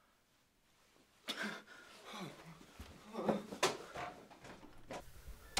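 About a second of silence, then scattered scuffs, knocks and short breathy sounds as a man hurries through a door. A loud door bang starts right at the end.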